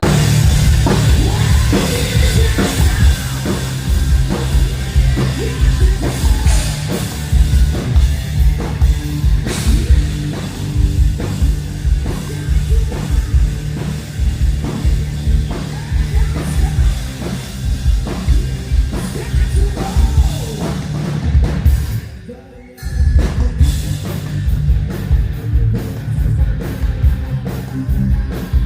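A rock band playing loud heavy metal during a sound check, driven by a fast, pounding kick drum. The music breaks off for about half a second roughly three-quarters of the way through, then comes back in.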